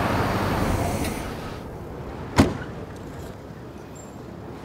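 A steady rushing noise fades out over the first second and a half. About two and a half seconds in comes a single loud slam, a door being shut, followed by quiet background.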